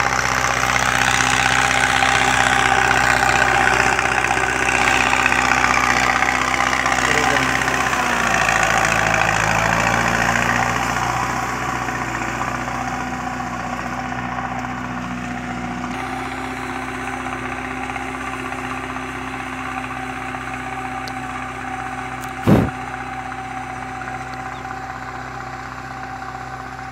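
Belarus 510 tractor's diesel engine running steadily as it drives across a field, loud at first and fading as it moves away. A single brief thump about twenty-two seconds in.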